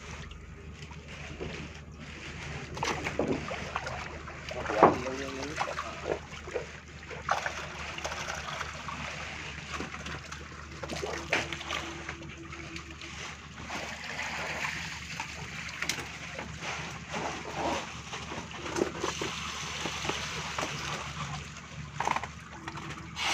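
Water splashing and sloshing in irregular bursts as tilapia are scooped out of a fish pen with a hand net, the loudest splash about five seconds in, over a steady low hum.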